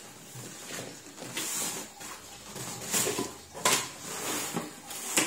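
Corrugated cardboard shipping box being opened by hand: its lid and flaps pulled free, giving a rustle with several sharp cardboard scrapes and knocks.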